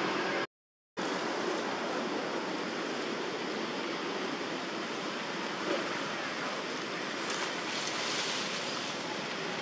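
Steady outdoor background noise, an even rushing hiss with no distinct events, broken by a half-second gap of total silence about half a second in.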